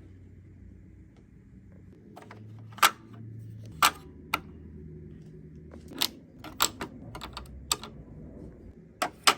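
Irregular hard clicks and taps as Cricut blade housings and tools are set into the slots of a plastic tool storage insert, starting about two seconds in, with the loudest knocks near three, four and nine seconds in.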